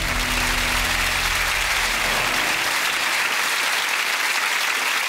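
Studio audience applauding steadily, with the last low notes of the theme music fading out in the first couple of seconds.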